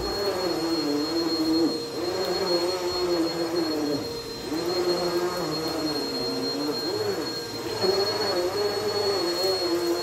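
Bagless upright vacuum cleaner running on a rug: a steady high whine over a motor drone whose pitch dips and recovers every second or two as the cleaner is worked back and forth.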